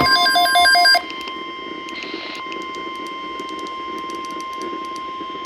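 For about the first second, pulsing electronic beeps end abruptly. After that a steady single-pitch alert tone near 1 kHz holds, typical of the NOAA Weather Radio 1050 Hz warning alarm tone, heard over radio hiss and scattered static clicks.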